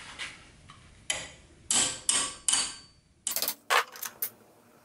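Hammer blows on a steel bar, bending the steel lever piece clamped in a bench vise down: four ringing metal strikes about half a second apart, then a quick run of lighter, sharp clicks.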